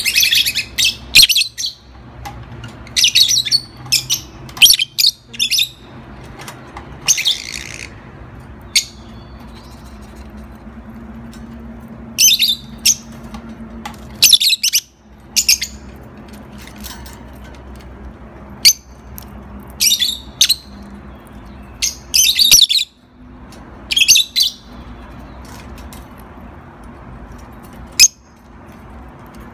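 Lovebird calling with loud, sharp, high-pitched chirps that come in short clusters of a few calls every few seconds.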